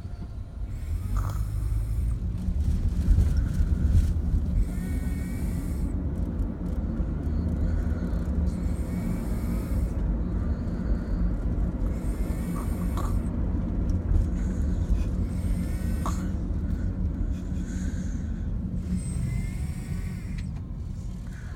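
A person snoring, a breath about every four seconds, over a steady low rumble.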